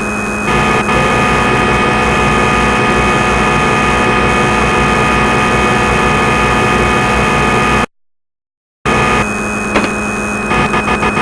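A steady machine hum with a low drone and several high held whining tones. It cuts off abruptly about eight seconds in and starts again about a second later, becoming rapidly pulsing near the end.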